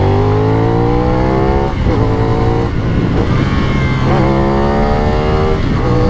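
CF Moto 450NK's 270-degree parallel-twin engine under hard acceleration, its note climbing in pitch and dropping back briefly at each upshift, with wind rush.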